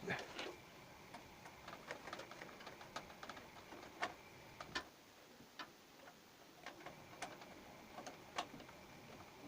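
Irregular small clicks and taps from computer parts being handled and fitted into a PC case, over a faint steady hiss.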